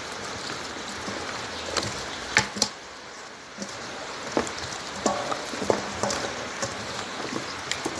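Hands squeezing and kneading raw chicken pieces in a thick marinade thickened with cheese: a steady wet squelching with scattered sharp clicks as the pieces knock and slap together.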